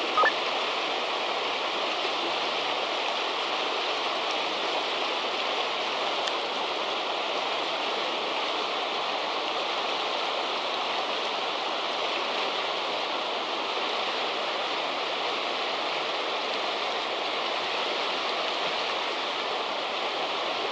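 River water rushing through a shallow riffle along the bank, a steady, unbroken rush. One brief louder sound comes right at the start.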